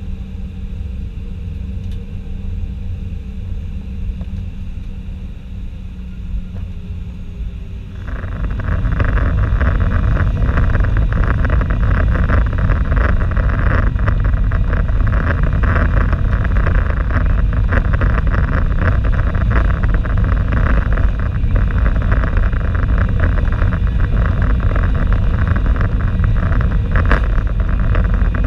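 Boeing 737-800's CFM56-7B turbofan engines heard from inside the cabin: a low steady rumble at first, then about eight seconds in the engines spool up to takeoff thrust and a loud, steady noise of the takeoff roll and initial climb follows.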